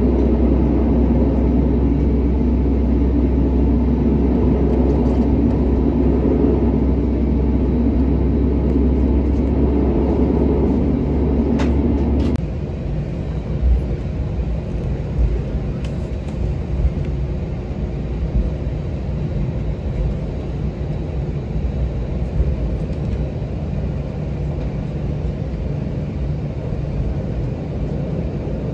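Airbus A321 cabin noise during taxi: the steady hum of the jet engines at taxi power with a low rumble. About twelve seconds in it drops suddenly to a quieter, lower rumble with a few brief bumps.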